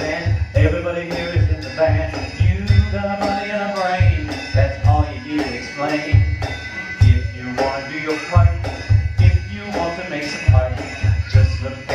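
Live music: a voice singing over a steady low drum beat, with bright rattling percussion on top.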